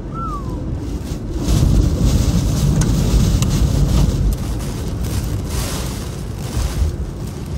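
Hurricane-force wind and driving rain buffeting a moving car, heard from inside the cabin: a heavy, deep rush that swells about a second and a half in and eases again after about four seconds.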